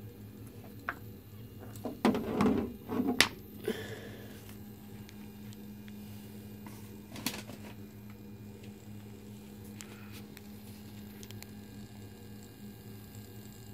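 Steady buzz of a small battery-powered vibrating bug toy's motor, with a short burst of knocks and rustling about two seconds in and a single click later.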